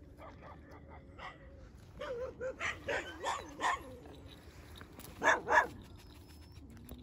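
Feral dogs barking: a quick run of about six barks, then two loud barks close together near the end.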